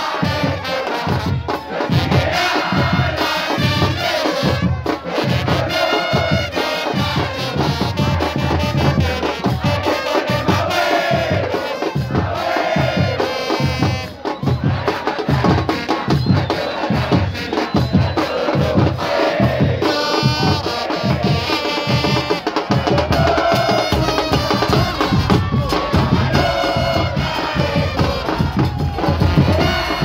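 Football crowd singing a terrace chant in unison, carried by a steady, driving beat of bass drums.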